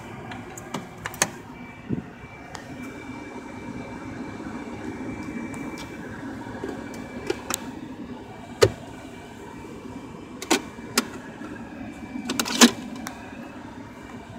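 Steady mechanical hum inside a Mercedes C280's cabin, with a faint high whine for much of the time and several sharp clicks and knocks, the loudest near the end.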